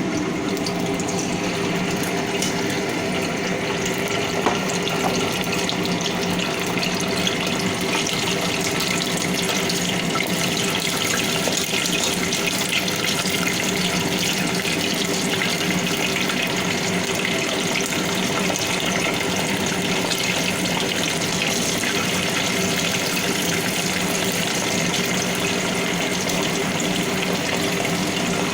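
Chicken wing pieces sizzling and crackling steadily as they fry in oil in a pan, over a steady low hum.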